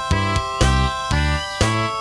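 Background music with a steady beat of about two strikes a second over sustained ringing tones and a bass line.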